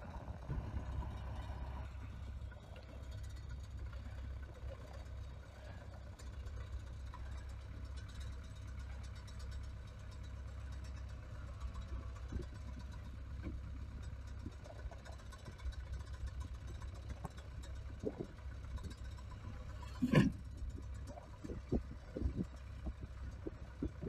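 MTZ-80 tractor's diesel engine running steadily with a low rumble while its front grab tips a round hay bale onto a trailer. A single sharp knock about twenty seconds in, as the bale drops onto the trailer bed.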